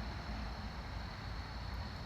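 Steady outdoor hiss and low rumble, with a few faint, very high-pitched ticks near the end: the clicking of a bat.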